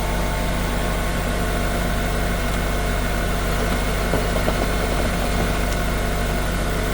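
Steady low mechanical hum of a running motor, unchanging throughout, with a few faint small clicks about four to five seconds in.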